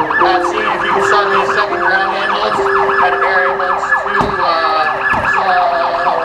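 Emergency vehicle siren on a rapid yelp, its wail falling over and over about five times a second, over steady low tones that change pitch every second or so.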